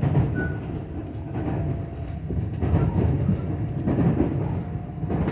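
JR West 225 series 0-subseries electric train running, heard on board: a steady low rumble with repeated wheel clicks over rail joints.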